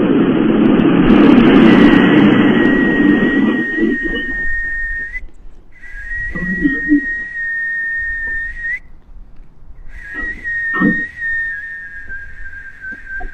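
A steady, high whistling tone, held with two short breaks and sinking slightly in pitch near the end, over a loud rushing noise in the first few seconds.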